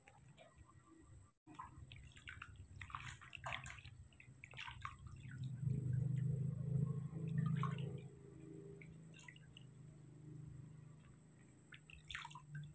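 Water splashing and dripping in a plastic basin as a baby monkey is washed by hand, with water scooped up and trickled over its head. A louder low rumble swells in the middle.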